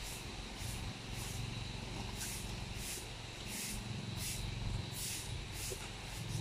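An elephant feeding on tree leaves: short rustling, tearing sounds repeat about every two-thirds of a second as its trunk strips foliage, over a steady low hum.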